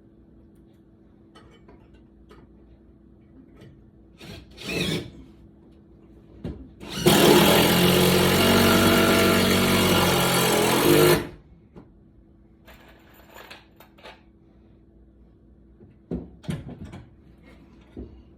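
A power tool running steadily for about four seconds, starting suddenly and cutting off, with a few light knocks and a shorter noise before it.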